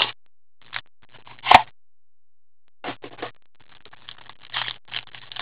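Gloved hands handling a trading card box and its cards: a few short, scattered rustles and light taps, with one sharp click about one and a half seconds in.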